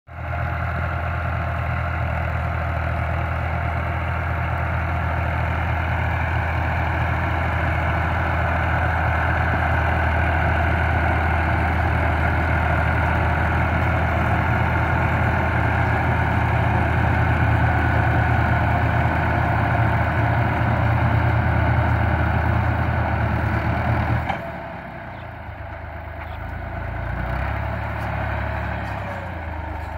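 Al-Ghazi farm tractor's diesel engine running steadily under load while it drives a rotavator through a field. About 24 seconds in the sound drops suddenly to a quieter, lower drone.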